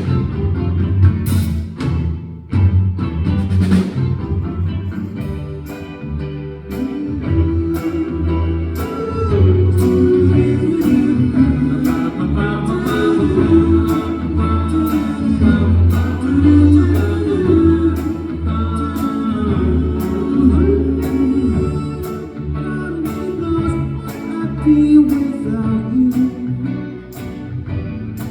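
Live band playing a pop ballad: bass and guitar under wordless harmony vocals that come in about a third of the way through, over a steady percussion tick.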